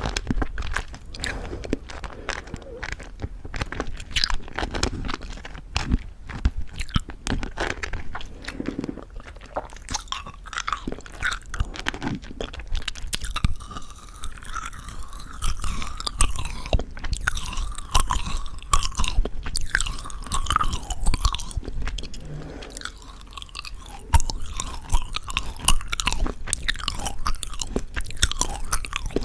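Close-miked mouth sounds of chewing crunchy sugar-coated plum jelly candies: dense irregular crunching and sticky, wet clicks, with a softer stretch of sucking and mouth noises about halfway through.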